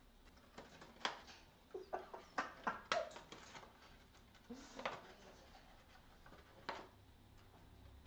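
Yellow-naped amazon parrot chewing and pulling at the rim of a paper gift bag with its beak: scattered crinkles and sharp clicks of stiff paper, bunched together in a quick run about two to three seconds in.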